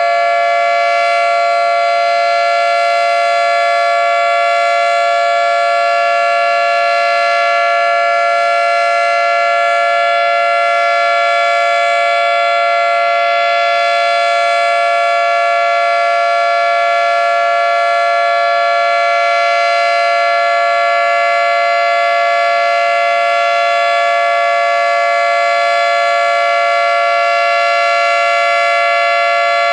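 Federal Signal 3T22 three-tone electromechanical outdoor warning siren sounding its steady alert signal. It is a loud, held chord of several tones that does not rise or fall in pitch.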